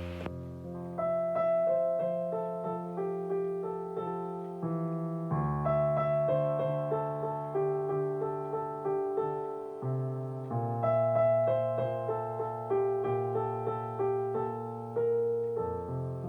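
Slow, gentle piano music: soft chords and a melody over deep bass notes that are held and change about every five seconds.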